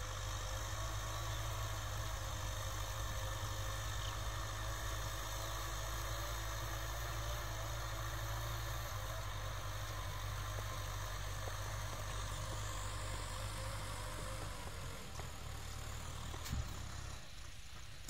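Kubota tractor's diesel engine running steadily at a constant speed while pulling a disc plough through dry soil, with a deep even hum. There is a brief knock near the end.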